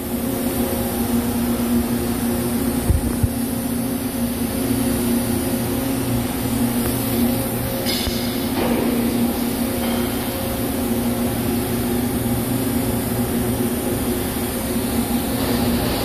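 Steady machine-shop drone: machinery running with a constant low hum, and a couple of brief knocks about three seconds in.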